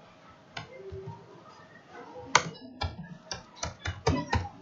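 Typing on a computer keyboard: a quick, uneven run of about eight key clicks starting about halfway through.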